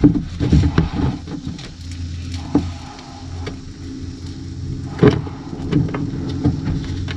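Dull knocks and rustling from a person moving and working inside a cramped fiberglass boat hull, over a low steady hum. Three knocks stand out, the loudest about five seconds in.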